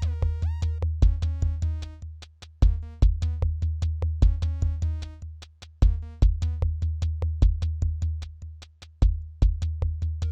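Electronic music from Korg Volca and Monotribe drum machine and analogue synthesizers: fast, evenly repeated short sequenced notes over a steady low bass, with a heavy hit about every three seconds. A few notes glide down in pitch near the start.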